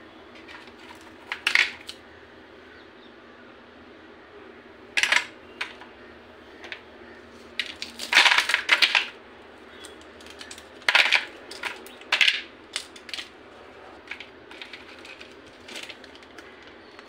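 Frozen lemon juice cubes cracking loose from a twisted plastic ice cube tray and clattering onto a plate, in irregular sharp clacks.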